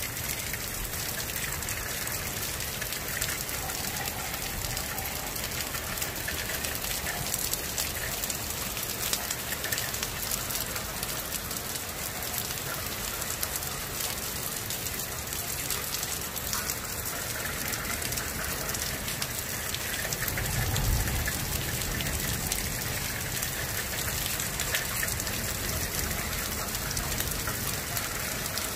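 Steady rain falling, a dense patter of drops, with a brief low rumble about two-thirds of the way through.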